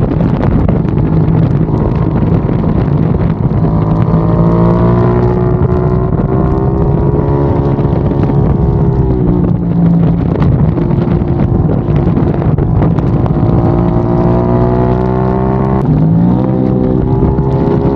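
KTM 890 Duke R's parallel-twin engine running hard, with wind rushing over it. Its pitch climbs through a long pull, drops about halfway, climbs again, then dips and jumps back up sharply near the end.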